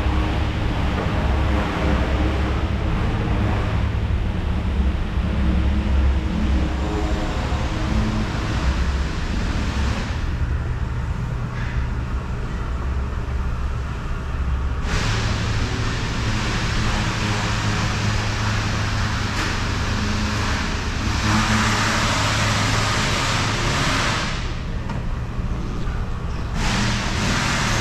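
Gardner 2V36M 36-inch double disc vertical grinder running: a steady low electric-motor hum with a broad whir over it. The whir drops away for a few seconds around the middle and again near the end.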